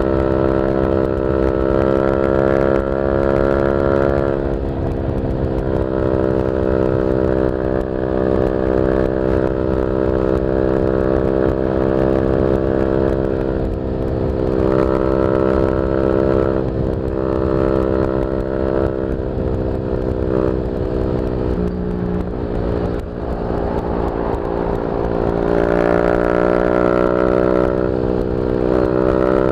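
Yamaha Y15ZR 150cc single-cylinder four-stroke engine running through a YYPANG SD3 aftermarket exhaust while riding. Its pitch rises and falls with the throttle, dipping briefly several times, dropping lower a little past the middle, and climbing again near the end.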